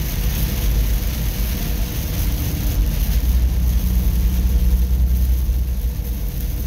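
Steady low engine and road rumble inside a semi-truck's cab while driving in heavy rain, with a constant hiss of rain and wet road over it.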